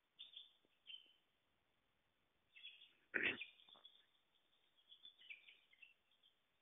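Faint, scattered bird chirps in a quiet wood, with a single short knock about three seconds in.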